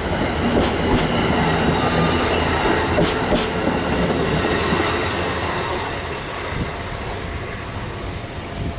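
Amtrak Northeast Regional stainless-steel passenger coaches rolling past at speed, the wheels clicking over rail joints in quick pairs, one pair for each truck. The rumble fades from about halfway through as the end of the train pulls away.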